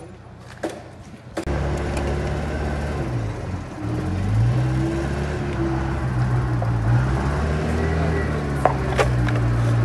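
A motor vehicle's engine starts up suddenly about a second and a half in. Its pitch dips and rises as it revs around the middle, then it runs steadily, with a couple of sharp clicks near the end.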